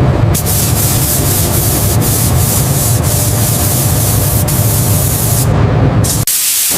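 Loud, steady hissing spray with a low rumble underneath, as from a pressurised spraying or blasting tool working on metal. It cuts out briefly just after six seconds, then starts again.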